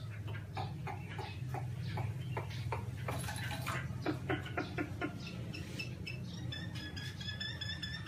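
Caged Chinese hwamei calling: a run of short, low, clicky notes, then from a bit past halfway a quick, even series of short high chips. A steady low hum lies underneath.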